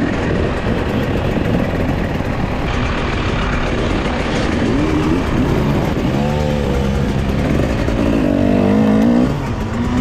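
Enduro motorcycle engine being ridden, revving up and dropping back repeatedly, its pitch rising and falling several times in the second half.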